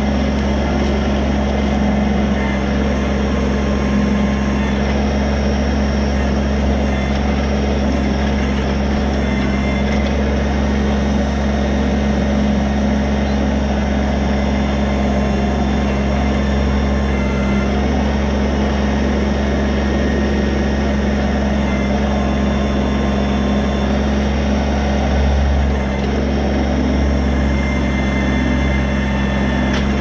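Kubota BX23S tractor's three-cylinder diesel engine running steadily at a constant speed while the backhoe arm is worked.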